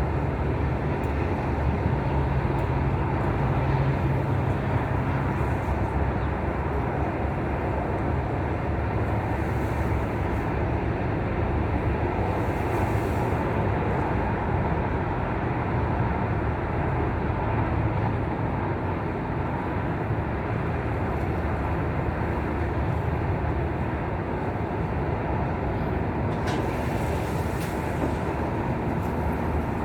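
Wind blowing across the microphone: a steady low rumble with no breaks.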